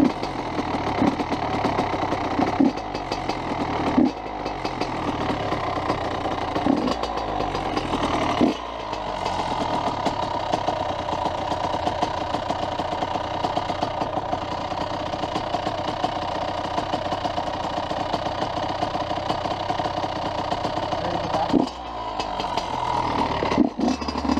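A motorcycle engine running at a steady pitch. Short sharp spikes come roughly every second or two in the first third and again near the end.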